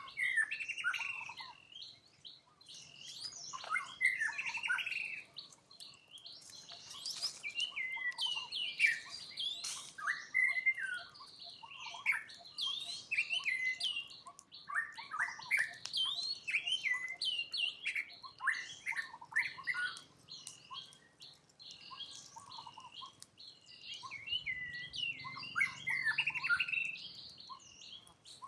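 Many short, high-pitched chirping calls that overlap almost without pause, bird-like in character.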